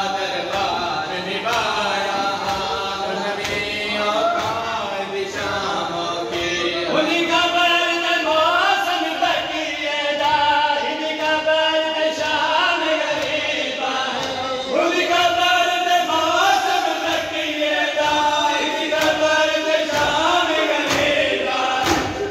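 Male voices chanting a Shia Muharram lament (nauha) in a sung melody, with a steady beat of chest-slapping matam keeping time under the chant.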